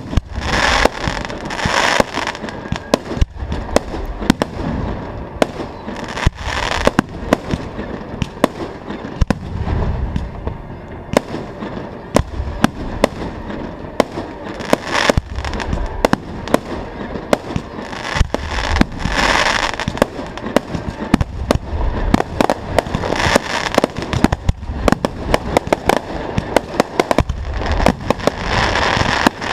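Aerial fireworks display: a dense run of shells and rockets bursting in rapid, irregular bangs, with hissing and crackling swells between them.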